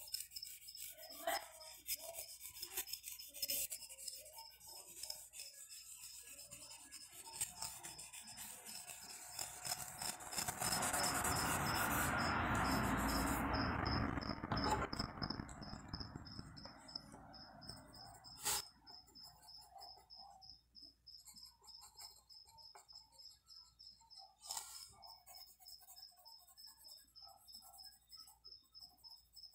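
Pencil scratching and rubbing on paper while drawing, with a louder stretch of rough rubbing, likely shading, about ten to fifteen seconds in, and two sharp clicks later on. A steady, evenly pulsed high chirp runs in the background throughout.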